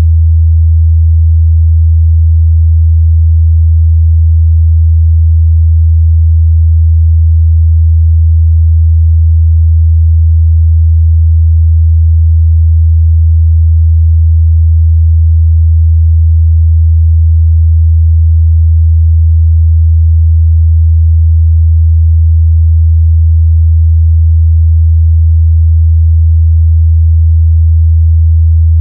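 Steady 81 Hz sine-wave test tone, a pure low hum held at constant level, used to check a speaker's or headphone's mid-bass response.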